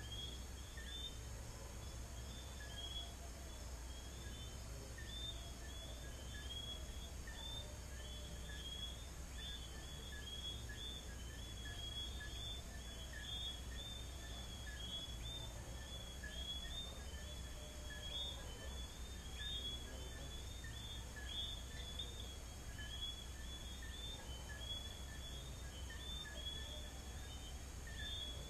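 Night chorus of many small whistling frogs, the Caracas 'sapitos' (Johnstone's whistling frog), giving short high chirping whistles that overlap several times a second, over a steady high trill of crickets and a low, even hum.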